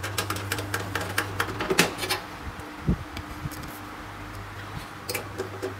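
Scattered clicks and light metallic taps of a screwdriver and small screws against a steel computer case as an SSD is fastened in, with a dull thump about three seconds in, over a steady low hum.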